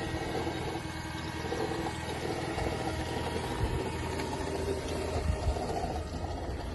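Mercedes-Benz E350's V6 engine idling with a fast, even ticking over its steady hum: the unidentified engine noise the owner is asking for help with.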